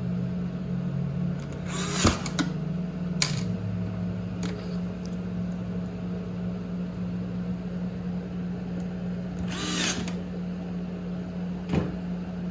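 Steady low motor hum from a power tool, its pitch dropping slightly about three seconds in, with several short sharp clicks and knocks as screws are driven in to secure the pressure washer's hose reel.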